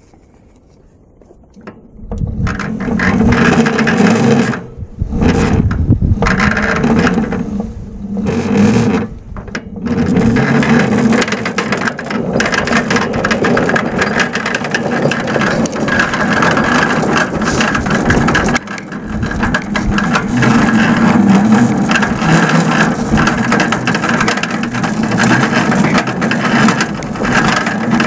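5-inch gauge Whitcomb miniature locomotive running along the garden-railway track, its drive and gears whirring with a rattle of wheels on rail. It gets going about two seconds in, drops away briefly a few times in the first ten seconds, then runs steadily.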